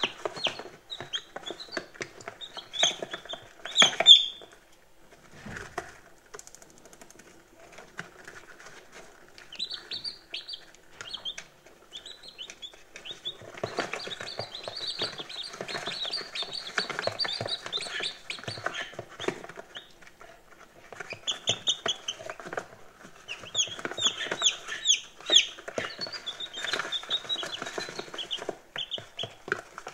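Day-old chicks peeping: many short, high chirps overlapping from several birds at once. The peeping thins out for a few seconds early on, then grows busy again about halfway through and near the end.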